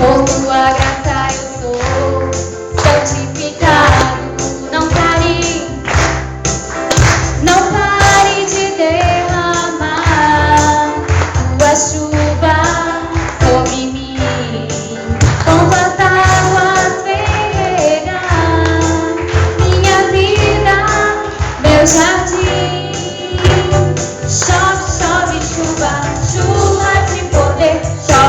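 A church congregation singing a hymn, with instrumental accompaniment and a tambourine keeping the beat.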